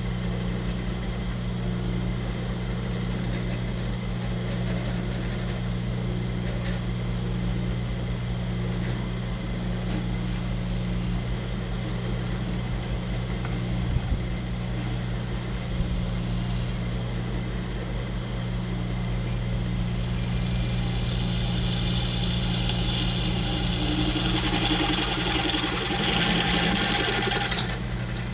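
Drill press's electric motor running with a steady hum; from about 20 s in, the bit grinds into steel plate, adding a harsher, higher noise until near the end.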